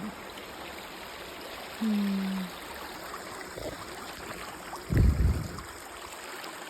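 Creek water running steadily over rocks. A short low hum sounds about two seconds in, and a loud low thump near five seconds in.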